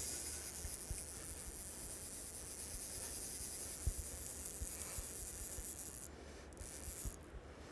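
Fly reel's drag buzzing steadily as a hooked fish pulls line off, then stopping and starting in short bursts near the end. Scattered low thumps underneath.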